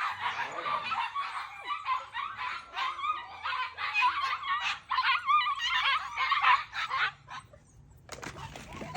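A litter of husky puppies whining and squeaking together, many short high wavering calls overlapping. They stop a little after seven seconds in, and a short burst of noise follows near the end.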